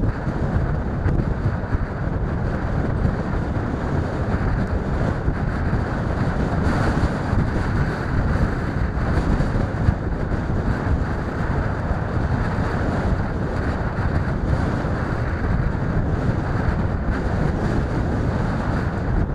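Wind buffeting the microphone outdoors: a steady rushing noise, heaviest in the low end.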